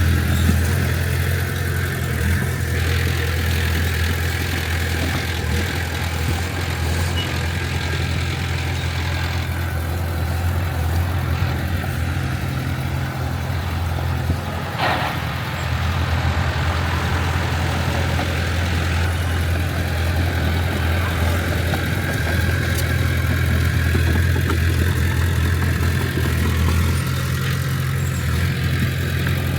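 Heavy diesel engine of earthmoving machinery running steadily with a deep drone, dipping briefly about halfway through.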